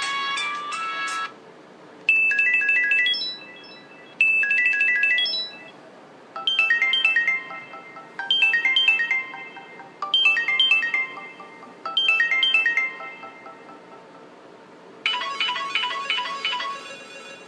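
Samsung C3300K Champ mobile phone playing its built-in ringtones through its loudspeaker. One tune ends about a second in. The next ringtone repeats a short phrase of high notes about every two seconds, six times, and near the end a third ringtone begins with quick repeated notes.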